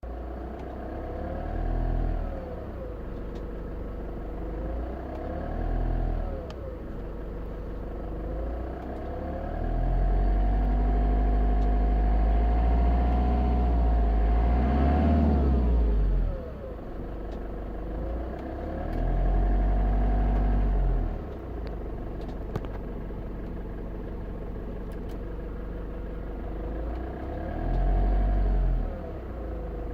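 Fiat Ducato 2.8 idTD four-cylinder turbodiesel engine running, its revs raised and let fall again several times: short rises near 2 and 6 seconds, a longer one from about 10 to 16 seconds, and more around 20 and 28 seconds. Under it is a weird noise the owner cannot place, which changes with the air conditioning on or off.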